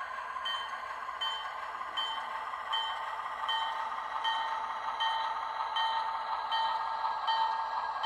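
Sound system of a Bachmann Alco switcher model playing a diesel locomotive bell, ringing evenly a little more than once a second over a steady engine hum, heard through the model's small speaker.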